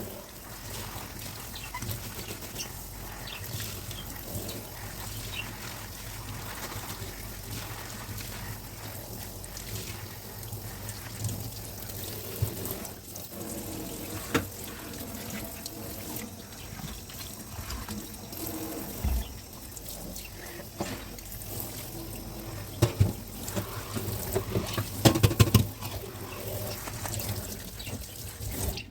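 Water running and splashing in a kitchen sink as dishes are washed by hand, with occasional knocks of dishes against each other or the sink. Several louder knocks come close together near the end.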